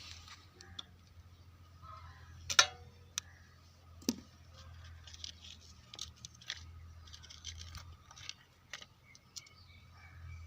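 Small clicks, ticks and snips of hand tools and wire being handled during electrical wiring work, one sharp click louder than the rest about two and a half seconds in, over a low steady hum.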